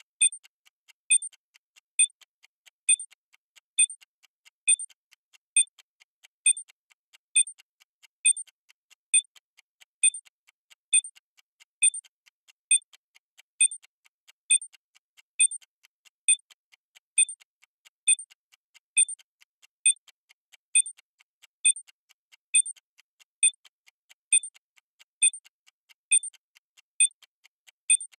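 Bomb countdown timer sound effect ticking steadily: short, sharp, high-pitched ticks a little faster than one a second, with fainter ticks between them.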